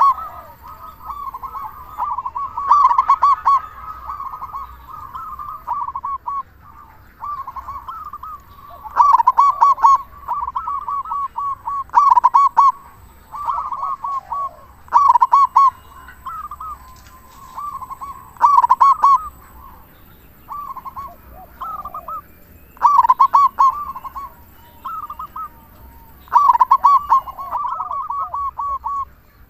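Zebra dove (perkutut) cooing over and over: trains of quick, rolling coos, with a loud phrase every few seconds.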